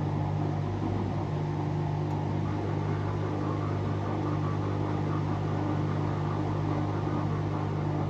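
Old front-loading washing machine in its wash cycle, drum turning with wet rags inside, running with a steady low motor hum.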